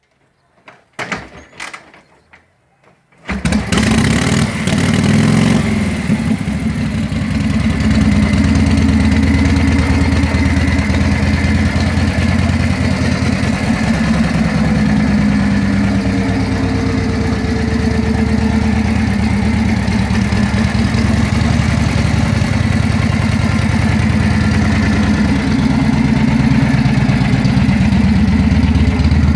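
A military motorcycle engine starts about three seconds in after a few short knocks, then runs steadily with a low, even beat.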